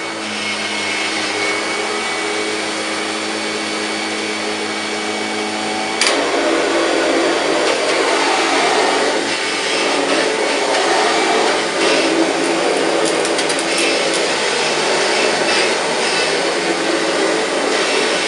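1999 Kirby G5 upright vacuum cleaner running, pushed over carpet and a shag rug, with a steady motor hum. About six seconds in there is a sharp click, after which it runs louder and noisier.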